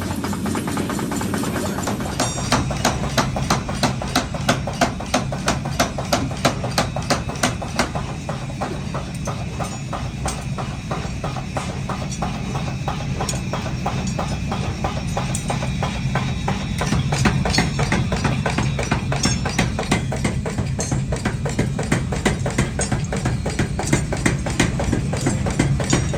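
Rapid, evenly spaced hammer blows on metal, forging work, over the steady hum of a running motor.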